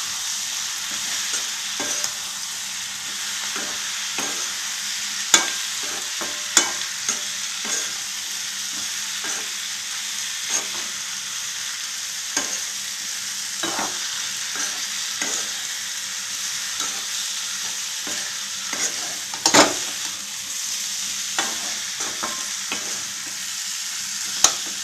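Boiled potato pieces sizzling in oil in a non-stick pan while a steel spoon stirs them, with irregular clicks and scrapes of the spoon against the pan. The sharpest knock comes about two-thirds of the way through.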